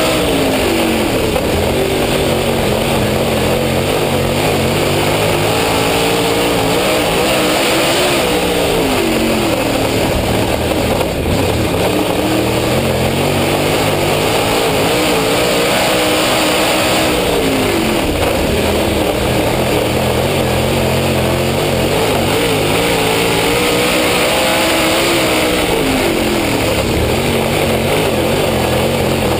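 Dirt late model race car's V8 engine at racing speed, heard from an onboard camera. The engine note drops as the driver lifts for each corner and climbs again down each straight, about every eight seconds, with a steady rush of wind and road noise underneath.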